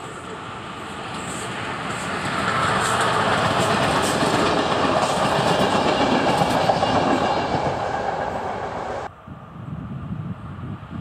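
Passenger train hauled by a Škoda 'Laminátka' electric locomotive passing close by at speed, with rumble and wheel clatter. The sound swells over the first couple of seconds, stays loud for several seconds, then cuts off abruptly about nine seconds in to a quieter, more distant train rumble.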